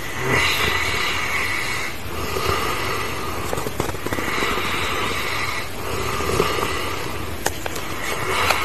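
Dog snoring in a slow, steady rhythm, each breath in and out taking about four seconds.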